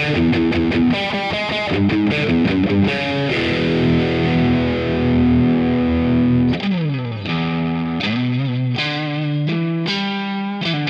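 Squier Affinity Series Stratocaster electric guitar played with distortion. Short rhythmic chords come first, then one chord rings for about three seconds. About two-thirds of the way through there is a quick downward slide, followed by more chords.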